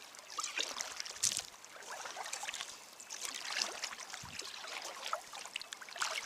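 Kayak paddle strokes: the blade dipping and splashing in the water, with dripping and trickling between strokes. There is a sharp click about a second in and a short dull knock a little past the middle.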